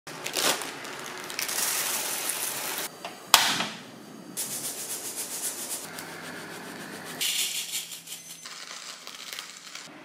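Coffee beans rattling as they are shaken in a steel mesh strainer over a gas flame, the sound changing abruptly several times. A single sharp click a little over three seconds in is the loudest sound.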